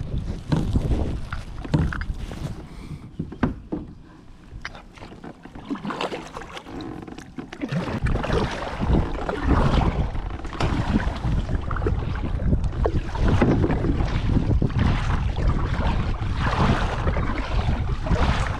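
A kayak moving on the water: irregular knocks and splashes from the paddle and hull, then from about halfway through a louder, steady rush with low rumble, like wind on the microphone.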